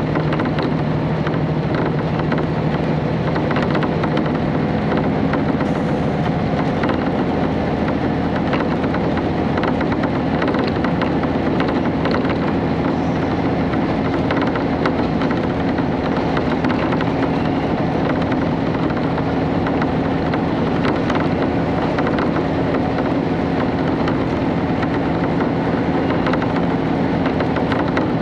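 Interior running sound of a KiHa 31 diesel railcar: a steady diesel engine drone over wheel and rail rumble, with the engine note settling a little higher a few seconds in and edging up slowly as the car runs on.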